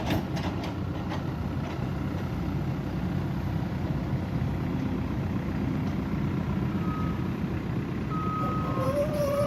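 JCB backhoe loader's diesel engine running steadily under work, with a reversing alarm starting to beep about seven seconds in.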